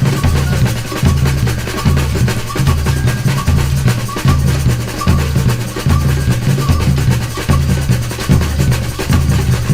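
Batucada percussion ensemble playing: deep bass drums beat a repeating pattern under a dense, continuous layer of snare and small hand-percussion strokes.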